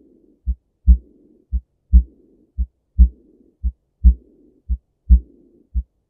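Stethoscope recording of a heartbeat with aortic regurgitation: steady lub-dub thumps about once a second, with a soft hissing murmur after the louder thump of each beat, the diastolic murmur of aortic regurgitation.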